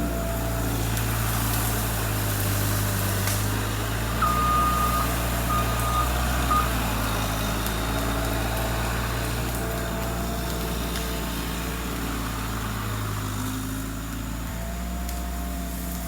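Engine of a heavy machine running steadily, with a backup alarm beeping three times about four seconds in, the first beep the longest.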